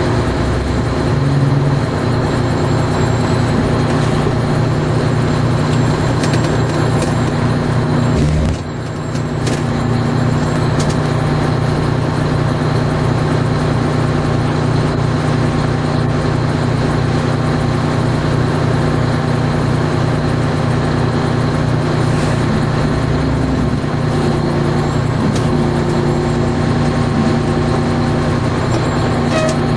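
A large emergency vehicle's engine running steadily at an even speed close by, with a brief dip in loudness about eight seconds in.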